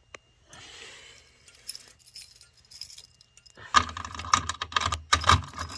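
A bunch of keys jangling and clattering, loud from about four seconds in, after a few faint rustles and clicks.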